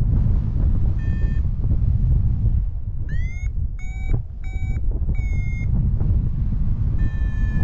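Paragliding variometer beeping: short electronic tones, several sliding up in pitch, one after another, then a longer steady tone near the end. The beeps are the climb signal in thermal lift. Loud wind rush on the microphone from the flight runs underneath throughout.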